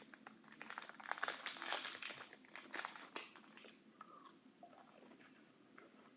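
Person biting into and chewing a crunchy granola bar: a run of crisp crunches, thinning to quieter chewing after about three seconds.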